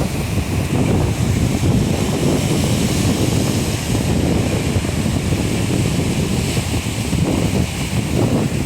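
Sea surf washing on the shore, mixed with steady wind rumble on the microphone.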